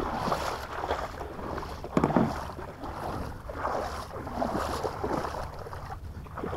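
Wind buffeting the microphone in a steady low rumble, with a short low vocal sound about two seconds in.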